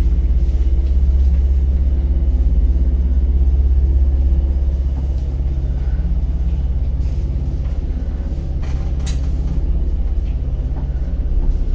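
Old relay-controlled passenger lift from the Sofia lift works travelling in its shaft: a steady low rumble and hum of the moving car and its drive, with a few sharp clicks a little past the middle and near the end.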